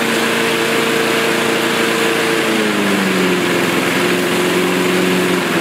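Mountfield Emperor lawnmower's Briggs & Stratton petrol engine running steadily. Its note drops as the throttle is pulled back about two and a half seconds in, then holds lower and cuts off right at the end.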